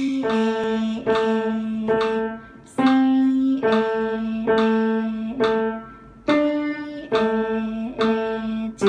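Yamaha upright piano played slowly in two hands: a low note and a higher melody note struck together at a steady beat of a little over one a second, each ringing and fading before the next.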